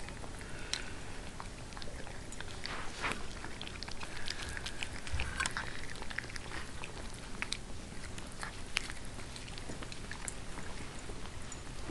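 Siberian husky puppies eating, a busy patter of small irregular smacking and chewing clicks.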